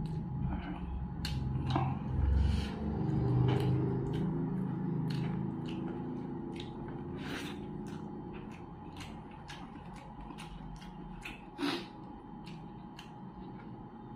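Close-miked eating: chewing fried fish and vegetables with the mouth, with many short, sharp, wet lip smacks and mouth clicks.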